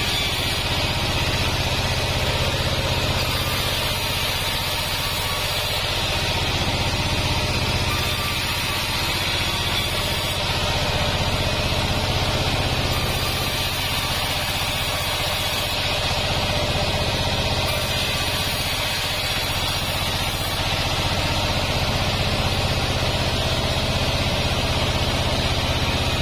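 Band sawmill running with a steady drone as its blade rips lengthwise through a waru log.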